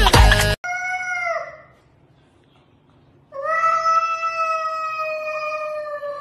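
A cat yowling in a standoff with another cat: a short call, then after a pause one long drawn-out yowl that sinks slowly in pitch. Music cuts off about half a second in.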